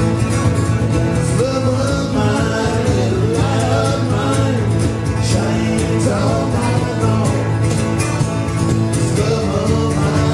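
Live country-folk band: two acoustic guitars strumming with a drum kit keeping the beat, and a man's voice singing from about a second and a half in.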